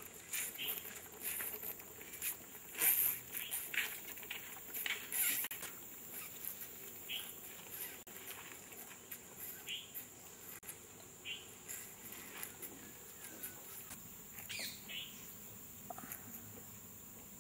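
Insects droning on one steady high pitch, with many short chirps, clicks and rustles scattered over it, the loudest about three and five seconds in.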